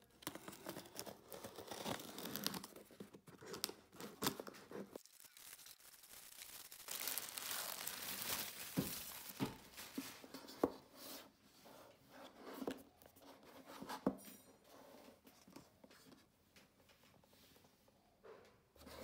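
A utility knife slitting the packing tape on a cardboard shipping box, with tearing and rustling of cardboard and packaging. This is followed by scattered light taps and knocks as the smartphone's cardboard retail box is handled.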